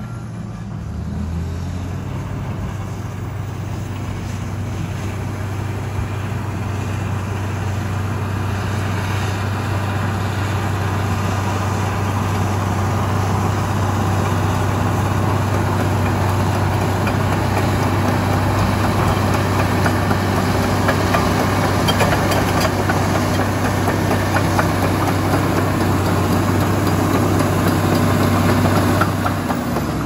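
Komatsu D85EX crawler bulldozer's diesel engine running steadily while the dozer pushes a blade-load of earth and rock, growing louder as it comes closer. The engine note drops near the end as the machine stops.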